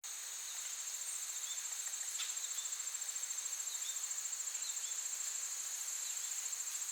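Crickets trilling in a steady, high, finely pulsing chorus, with a few faint short chirps over it.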